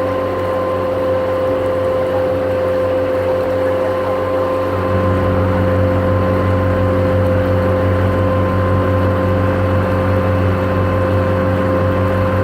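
A boat's engine running steadily, a low drone with a steady hum over the rush of water, heard aboard. The low drone grows stronger about five seconds in.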